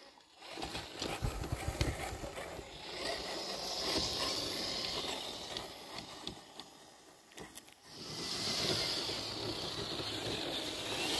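Traxxas TRX-4 Ford Bronco RC scale crawler driving over a dirt trail, its electric drivetrain whirring and tyres crunching on the dirt. The sound comes in two spells with a quieter lull around the middle.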